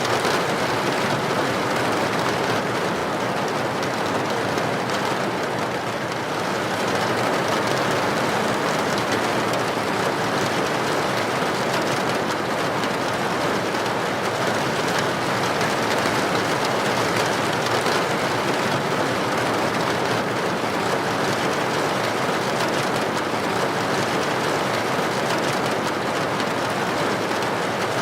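Heavy rain falling on a tin roof: a steady, dense patter that dips slightly about six seconds in.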